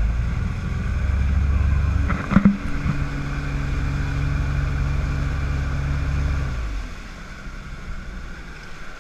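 Motorboat engine running steadily under way, with a sharp knock about two and a half seconds in; the engine note drops away about seven seconds in as the boat comes off the throttle.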